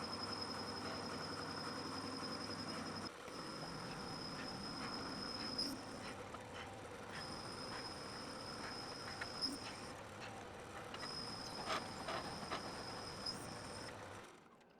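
A machine tool running: a steady motor hum with a high-pitched whine that drops out and comes back several times, and scattered light ticks. The sound cuts off sharply near the end.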